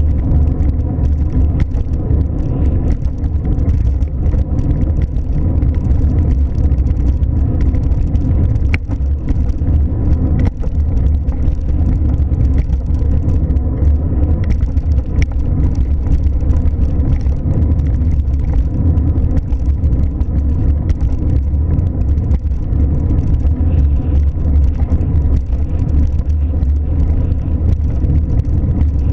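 Steady low rumble of a car driving, with a couple of faint clicks about nine and ten seconds in.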